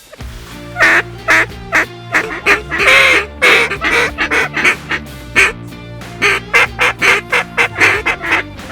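Duck and goose calling: a rapid run of loud quacks and honks, several a second, with a longer drawn-out honk about three seconds in.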